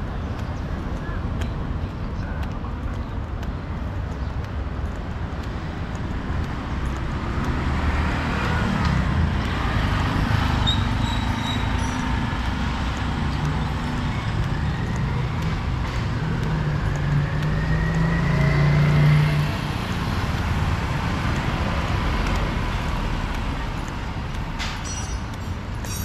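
City street traffic: a steady wash of vehicle engines and tyre noise. One engine passes close with a rising pitch, loudest about three-quarters of the way through.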